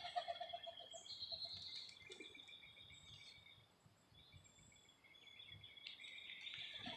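Faint outdoor ambience with birds calling: high, drawn-out trilling notes that fade in the middle and swell again, and a short run of rapid lower chirps at the start and again at the end.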